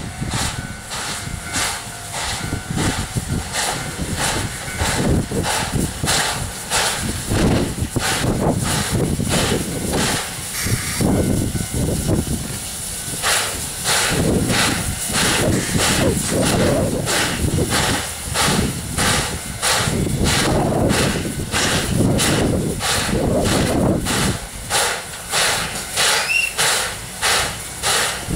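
Steam locomotive working, with regular beats about two a second over a steady hiss of steam. Wind gusts buffet the microphone.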